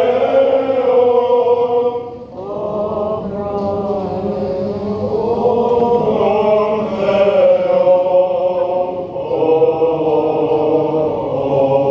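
Greek Orthodox Byzantine chant sung during the Divine Liturgy: voices hold long, slowly moving notes, with a brief break about two seconds in before the chant resumes.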